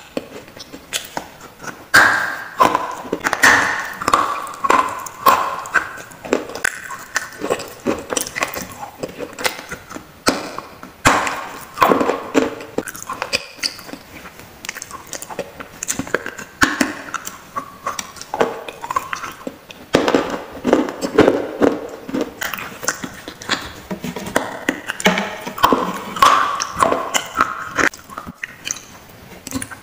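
Close-miked biting and chewing of pieces of a baked-clay gullak (terracotta money bank): dense, irregular crunches and crackles.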